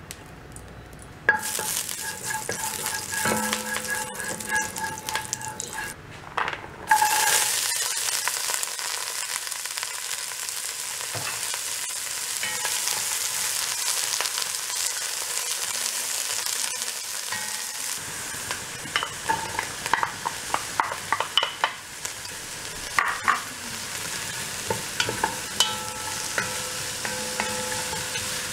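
Chopped celery and onion sizzling in hot oil in a pot while a wooden spoon stirs them. The sizzle starts suddenly about a second in, and in the second half the spoon knocks and scrapes against the pot.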